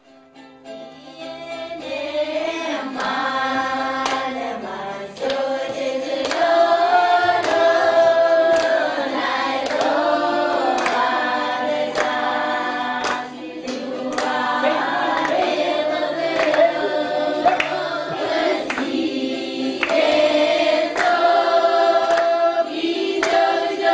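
A group of voices singing together in chorus, with sharp percussive strikes marking the beat throughout.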